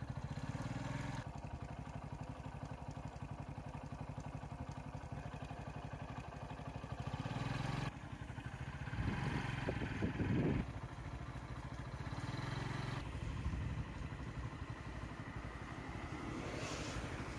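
Vehicle engine idling with a steady low pulse, and a motorcycle riding past on the road, with the engine sound louder for a stretch about nine to ten seconds in. Near the end another car is heard approaching.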